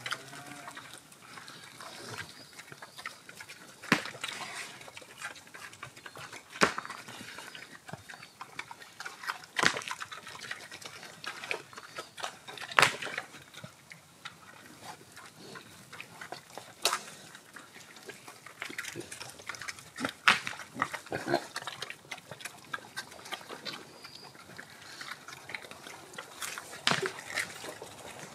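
Pigs rooting in rocky ground, with irregular sharp clicks and knocks every few seconds.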